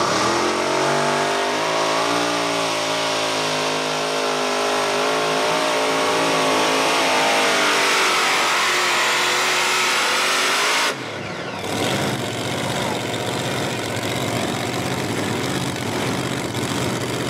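Modified pulling tractor's two supercharged engines running at full throttle under load. The pitch climbs over the first couple of seconds, then holds steady. About eleven seconds in the throttle cuts abruptly as the pull ends, and the engines run on lower and rougher.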